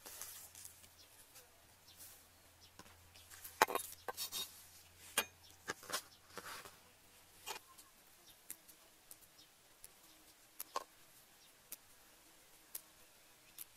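Hands handling fresh leafy greens: quiet rustling and light clicks as stems and leaves are moved and picked into a plastic basket. There is a busier stretch of rustling in the first half, then single soft ticks about once a second.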